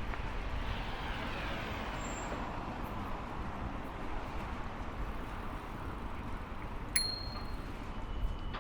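Traffic noise and wind rumble on the microphone while riding a bicycle, with a vehicle sweeping past about a second in. About seven seconds in there is a single sharp click with a brief high ring.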